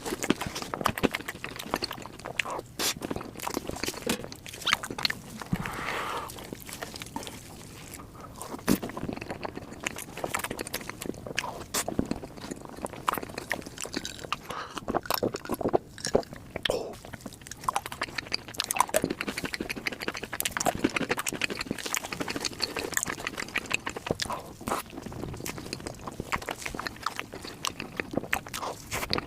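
Close-miked eating of matcha dessert: chewing with many sharp, wet mouth clicks throughout.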